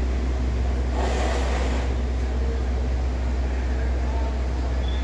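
Steady low hum of running machinery, with a brief rush of noise about a second in.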